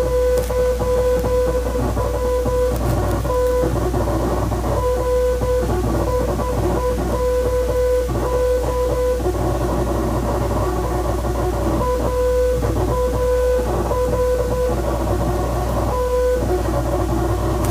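A steady mid-pitched beep keyed on and off in short and long pieces, like Morse code dots and dashes, running over guitar music with a constant low hum underneath.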